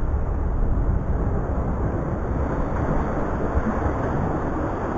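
Steady wind rumbling on the microphone over the wash of sea waves against jetty rocks.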